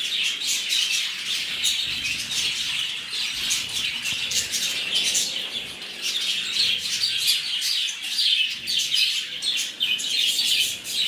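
A flock of Java finches (Java sparrows) chirping together without pause, many short high calls overlapping one another.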